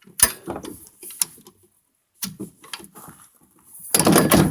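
Metal miter saw stand being handled: a series of clicks and knocks, a sharp knock about a quarter second in, and a longer, louder stretch of noise near the end.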